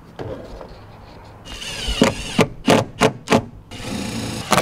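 Cordless drill driving self-tapping screws through a solar panel's mounting bracket into the bus roof. The motor whines in two bursts, the first starting about a second and a half in with sharp clicks every third of a second, the second shorter and near the end.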